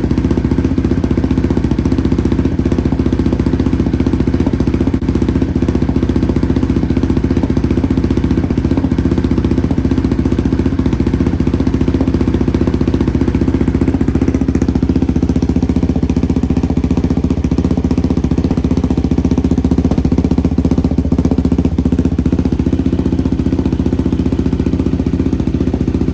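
Yamaha Raptor 700R's single-cylinder four-stroke engine idling steadily through a newly fitted Empire Industries aftermarket exhaust, running on a freshly loaded Power Commander fuel map.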